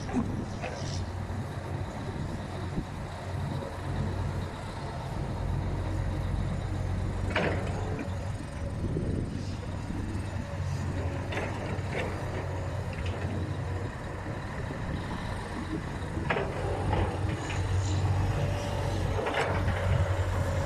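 Heavy diesel earthmoving machinery running at a steady low drone, with a handful of short knocks and clatters spread through.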